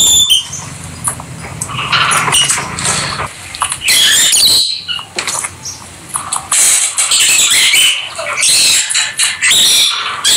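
Rosy-faced (peach-faced) lovebirds chattering: irregular bursts of high chirps and squeaks with short pauses between them.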